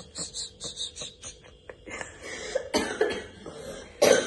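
A person coughing in a few short, sharp bursts, the loudest near the end, with light clicks and handling noise before them.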